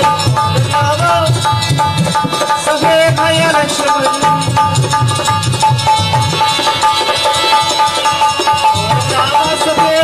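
Indian folk music: a steady tabla rhythm under a wavering melody line.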